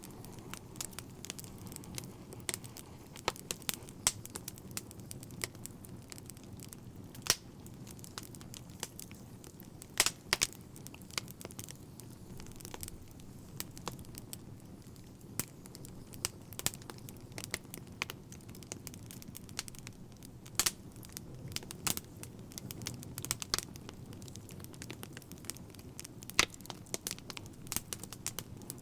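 Fire crackling steadily, with frequent irregular sharp pops and snaps over a low rumble of burning.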